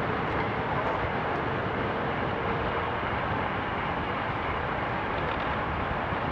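Steady rush of wind over the microphone and road noise from a road bike riding at about 23 mph.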